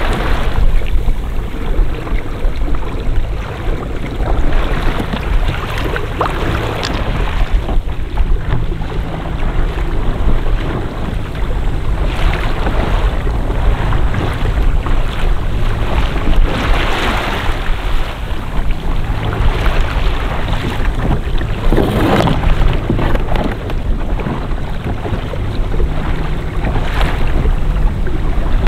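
Wind rumbling on the microphone over water splashing and lapping around a kayak on open water, with louder splashes every four to five seconds.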